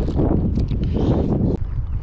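Wind buffeting the microphone as a steady low rumble, with irregular scuffing footsteps on grass that stop about one and a half seconds in.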